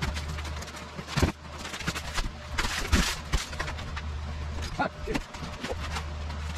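Ceiling demolition with a hammer: scattered sharp knocks and bangs, and a short rush of crumbling, falling debris about three seconds in, over a steady low hum.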